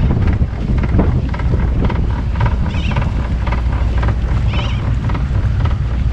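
Strong wind buffeting the microphone aboard a sailboat, with seabirds calling over it. A couple of higher calls stand out about three and four and a half seconds in.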